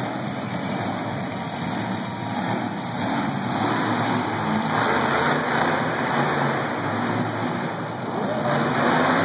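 Monster truck engines running as the trucks drive on the dirt floor, growing louder about three seconds in and again near the end.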